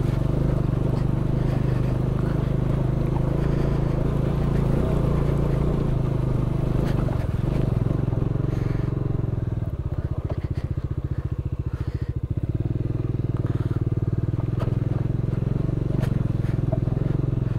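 Bajaj Dominar 400's single-cylinder engine running steadily at low speed on a rough rocky track. About ten seconds in, it drops to a slower, pulsing beat for a couple of seconds before picking up again. A few short knocks are heard along the way.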